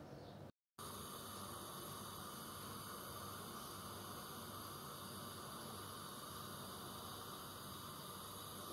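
Steady electrical hum with several high, unchanging whining tones, after a brief cut to silence just under a second in.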